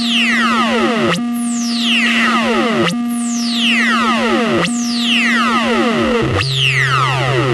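Teisco 110-F analog synthesizer playing a sound effect: a sharp falling pitch sweep that repeats about every second and three-quarters over a steady held drone note. The drone drops to a lower note near the end.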